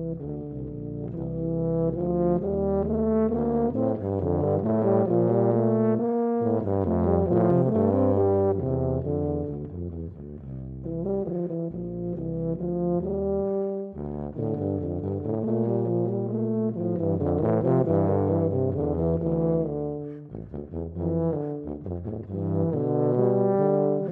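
Two tubas playing a duet: two lines of held and moving brass notes together, with a few short breaks between phrases.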